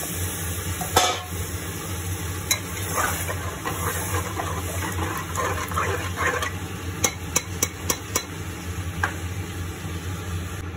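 Water poured into a pressure cooker of curry gravy, then a metal spatula stirring and scraping around the pot, with sharp knocks of metal on the pot, a quick run of them about seven seconds in. A steady low hum underneath.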